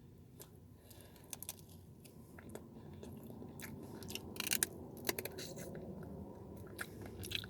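A person chewing and crunching a bite of dry-seasoned chicken wing close to the microphone, with many wet mouth clicks and smacks and a few louder crunches about halfway through.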